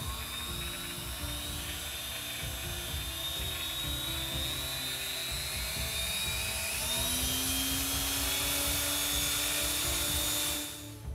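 Mini bench drill's small electric motor and spindle running under its speed controller with a steady high whine. Its pitch and loudness rise partway through as the speed is turned up, and it stops abruptly near the end.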